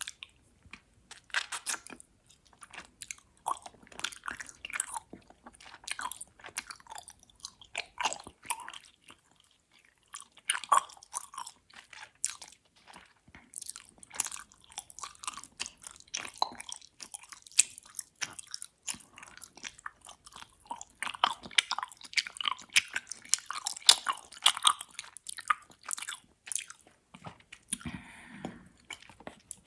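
Close-up mouth sounds of chewing gummy worms: wet, sticky smacks and clicks in quick clusters, with brief pauses between mouthfuls.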